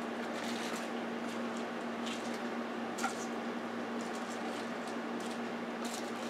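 Fried tempura pieces being handled on a paper-towel-lined plate: faint, scattered rustling and crinkling, with one small click about three seconds in, over a steady low hum.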